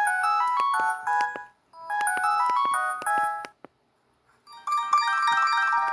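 Samsung GT-E1272 ringtone playing through a Newmind F15 flip phone's speaker: a short bright melody of quick notes plays twice, then after a brief pause a different, denser melody starts.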